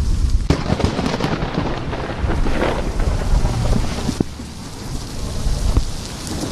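Thunderstorm: steady rain with a sudden thunderclap about half a second in, followed by rumbling and scattered crackles.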